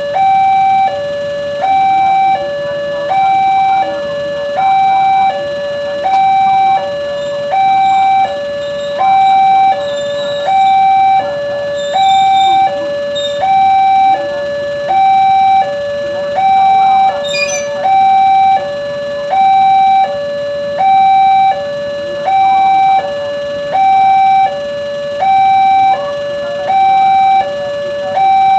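Level-crossing warning alarm sounding a steady two-tone ding-dong, a higher and a lower electronic tone alternating about every 0.7 seconds, which signals that a train is approaching and the barriers are down.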